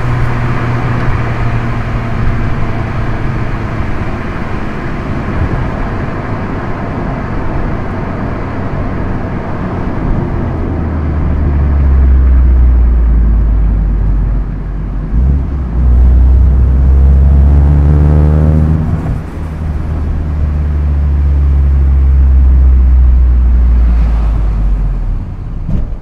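Proton Inspira's 4B10 MIVEC four-cylinder engine and aftermarket Supercircuit exhaust, heard from inside the cabin while driving. The engine note turns into a loud, deep drone about ten seconds in. Its pitch rises briefly and then breaks off about two-thirds of the way through. It eases off near the end.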